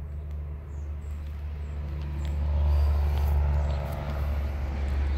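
A car passing by, its low rumble and tyre hiss swelling to a peak about three seconds in, then easing.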